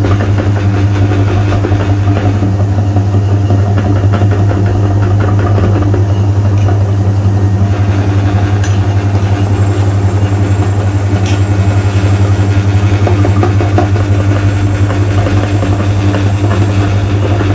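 A loud, steady mechanical drone with a strong low hum.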